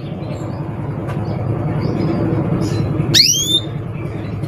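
A canary gives a single sharp call that sweeps steeply down in pitch about three seconds in, with a few faint short chirps around it. A steady low rumble runs underneath.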